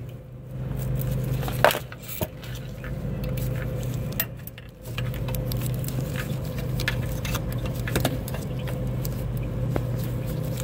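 Metal pick scraping and chipping at hard carbon soot that clogs the exhaust doser (aftertreatment fuel injector) port, heard as scattered small clicks and scrapes over a steady low hum. The soot blockage restricts injection and sets the excessively-high AFT fuel pressure code.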